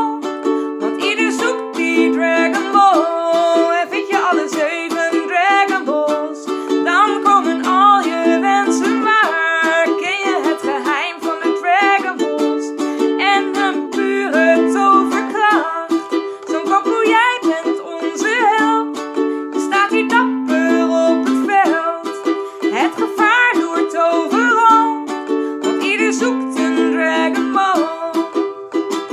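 Ukulele strummed in a steady rhythm, with a woman singing along in an upbeat melody.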